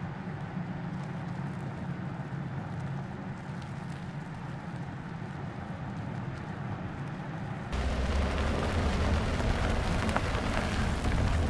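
Mercedes GLE SUV driving on a gravel track: a steady low engine drone with tyre noise, which about eight seconds in jumps abruptly to a louder, closer rumble with more gravel noise.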